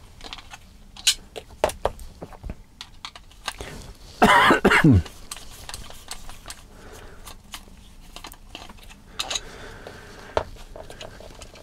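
Small irregular clicks and taps of a hand screwdriver working screws and handling hard plastic parts on a Tamiya MF-01X plastic RC chassis. One short, loud vocal sound, a cough, comes about four seconds in.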